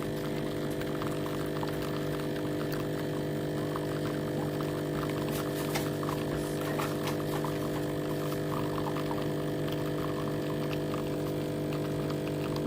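Breville Bijou espresso machine humming steadily, an even electrical drone like its vibration pump running, with faint light clicks over it. It cuts off at the end.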